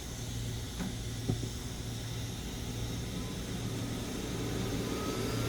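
Hot air rework station blowing steadily, a hiss with a low hum, while heating the laptop board's solder. A couple of faint ticks come early, and a faint rising whine begins near the end.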